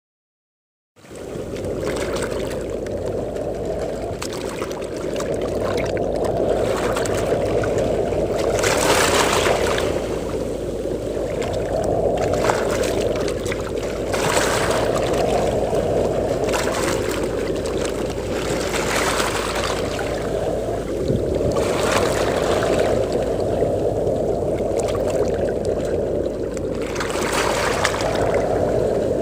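Sea waves breaking and washing on a beach, a hiss swelling every few seconds over a steady low rumble of wind, starting about a second in.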